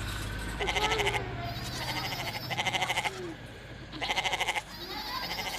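Sheep bleating three times, each quavering call about half a second long and roughly a second and a half apart.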